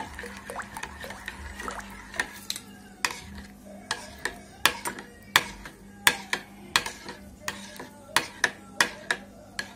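A spoon whisking a runny sauce of tomato paste, water, oil and spices in a bowl, clinking sharply against the bowl's side about twice a second.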